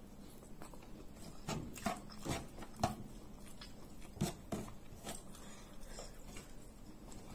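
Close-miked chewing and wet lip smacking from a mouthful of steamed cassava rice (tiwul) and spiced tuna, with sharp mouth clicks in clusters around two and four seconds in.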